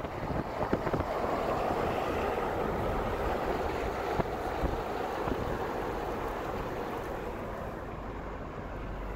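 Steady rush of wind and tyre noise from a car driving on a rain-wet road, heard from inside the car.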